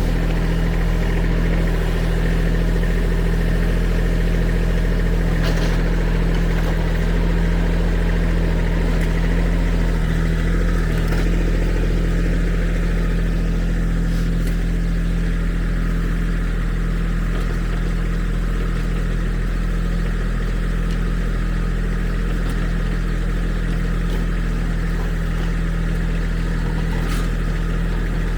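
Kubota diesel engine running steadily while the backhoe works to pull a pipe out of the ground, with a few brief clanks.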